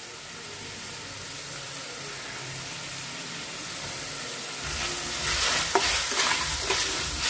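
Strips of boneless chicken sizzling steadily in hot oil in a frying pan. A little under five seconds in, a steel spatula starts stirring them, adding louder, uneven scraping strokes against the pan.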